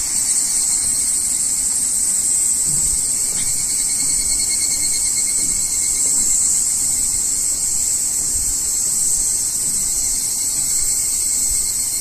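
A steady, unbroken high-pitched insect chorus, with faint footsteps on the treads of a metal staircase beneath it.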